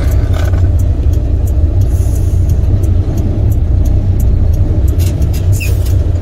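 International truck's MaxxForce diesel engine running, heard from inside the cab: a steady low rumble with a few faint clicks over it.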